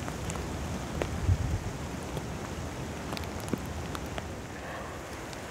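Rain and wet snow falling, an even hiss with scattered drops ticking on nearby surfaces. A brief low rumble about a second in.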